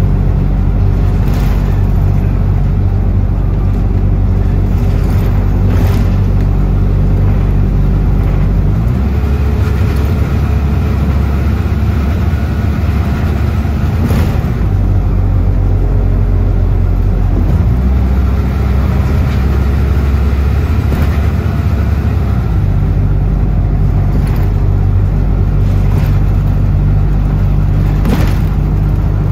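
Bus engine heard from on board, idling steadily; the engine note rises about nine seconds in and settles back to a steady idle about twenty-two seconds in, with a few brief knocks and rattles.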